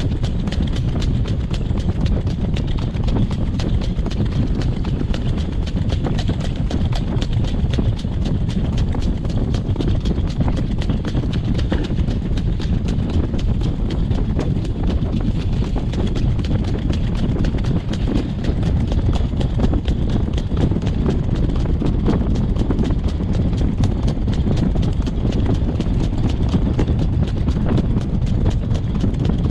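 Horse's hooves clip-clopping steadily on a gravel road as it pulls a training cart, over a steady low rumble.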